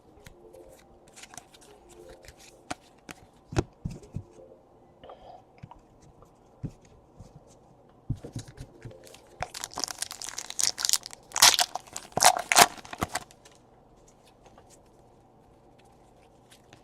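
Trading cards being handled, with scattered small clicks and taps. About ten seconds in comes a few seconds of crinkling and tearing as a card pack's wrapper is ripped open.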